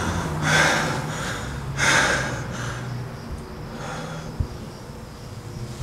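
A man breathing hard through his mouth: about four heavy breaths a second or so apart, the first two loudest, the rest growing fainter.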